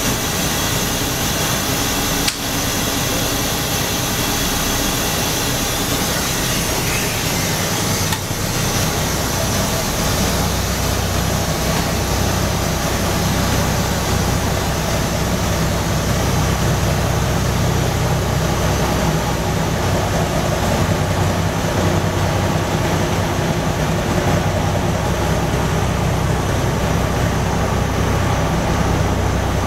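1952 Crown school bus's Cummins 220 diesel engine idling steadily, heard from inside the bus. Two sharp clicks come about two and eight seconds in, and after the second the low hum grows fuller.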